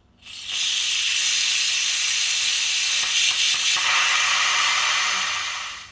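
Pressure King Pro electric pressure cooker blasting steam out of its release valve in a loud, steady hiss as the pressure is manually quick-released. The hiss starts abruptly just after the valve is flipped and fades near the end as the pressure is spent.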